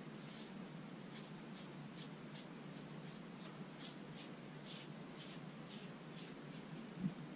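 Faint, soft scratchy strokes of a small paintbrush working paint on a canvas, about two to three a second, with a single louder knock near the end.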